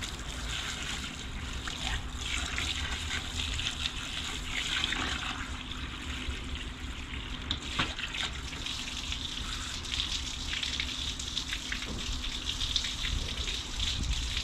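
Water from a garden hose running and splashing into a plastic bucket and over freshly gutted plaice being rinsed off, a steady trickling splash.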